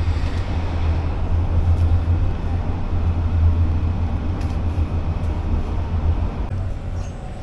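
Modern low-floor tram running, heard from inside the passenger car: a steady low rumble that drops off about six and a half seconds in.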